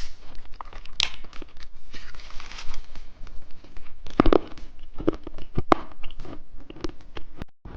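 Close-miked crackling and crunching from a candy being unwrapped and bitten, a dense run of small clicks with a few louder snaps.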